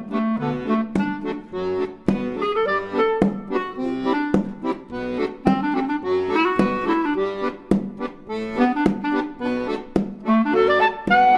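Background music: a reed-instrument melody, accordion-like, over a steady beat.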